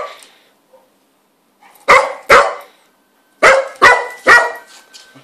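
Cocker spaniel barking at a Coca-Cola bottle in play: two sharp barks about two seconds in, then three quick barks about a second later.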